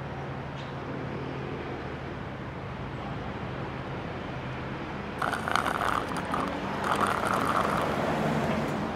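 City street traffic: a steady low hum of traffic, then a louder passing vehicle with a rattling, clattering sound from about five seconds in.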